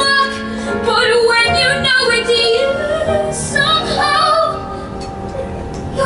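A boy singing a musical-theatre ballad with piano accompaniment, wavering with vibrato on held notes.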